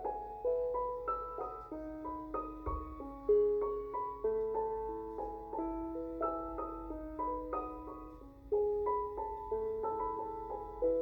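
Background piano music: a gentle melody of single struck notes over sustained chords.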